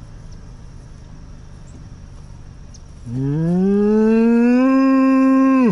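A black bull mooing: one long, loud moo that starts low about three seconds in, rises in pitch over about a second, holds steady, then breaks off sharply.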